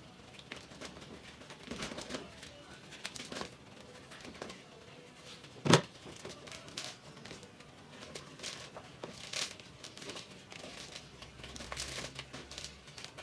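Dry guajillo chiles being cut open with scissors and pulled apart by hand: irregular crinkling and crackling of the brittle skins as the seeds and veins are stripped out and dropped into a plastic bowl. One sharp knock about six seconds in.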